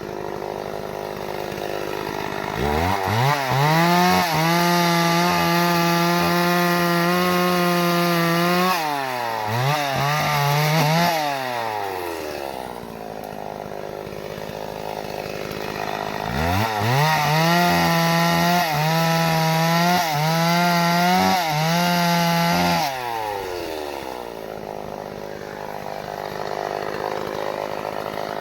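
Two-stroke chainsaw idling, then revving up to full throttle and holding a high steady pitch for about six seconds while cutting acacia wood. It drops back to idle, blips once, and does it again.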